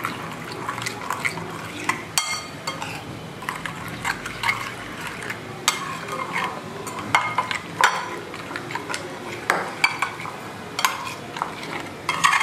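A spoon stirring a thick, wet spice marinade of yogurt, oil and lemon juice in a bowl, with irregular clicks and scrapes of the spoon against the bowl.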